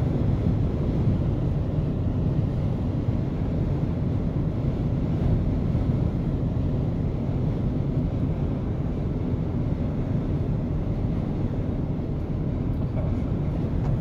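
Strong wind buffeting the microphone on an open shoreline: a loud, steady low rumble with no distinct tones.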